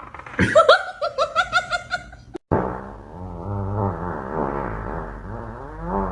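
Person laughing in a quick run of snickering bursts. After a sudden cut about two and a half seconds in, a long, low, wavering horn-like tone takes over.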